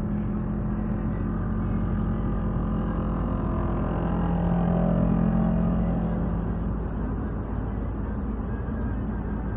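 Steady engine and road noise heard from inside a moving car, mixed with the engines of the quad bike and motorcycles riding just ahead. The engine note swells a little around the middle, then settles back.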